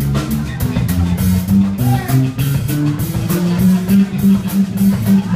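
Live blues-rock band playing electric guitars, bass guitar and drums. Guitar notes bend up and down over a steady drum beat, and from about four seconds in the bass repeats one note.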